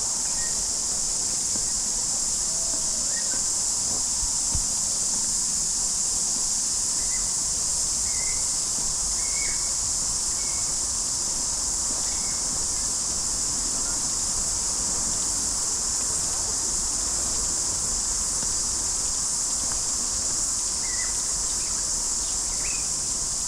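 A steady, high-pitched chorus of summer insects, with a few faint short chirps scattered through it.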